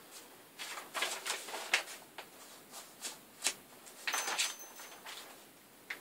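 Loose sheets of paper rustling and shuffling as they are leafed through, in short irregular bursts. The longest comes about four seconds in.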